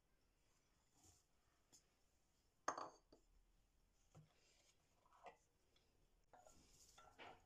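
Near silence broken by a few short clinks of a ceramic plate against a glass mixing bowl as ground nuts are tipped in. The loudest clink is about two and a half seconds in, with softer taps later.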